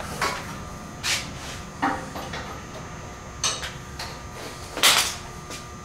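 Hand tools and metal parts clanking during exhaust work on a truck: a series of short, sharp clanks and clicks about a second apart, the loudest near the end.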